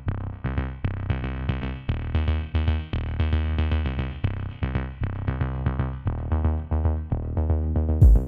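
Electronic instrumental background music: a steady beat under a quick run of short synthesizer notes. A loud low thump and a burst of hiss come in near the end.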